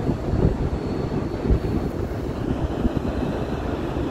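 Wind buffeting the microphone: a steady low rumble with irregular gusts, the strongest about a second and a half in.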